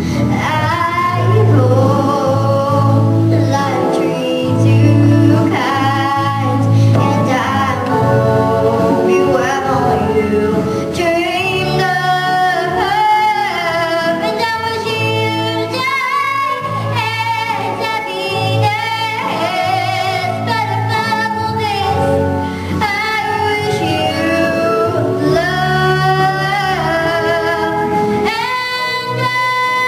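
A girl singing a song into a handheld microphone, accompanied live on keyboard.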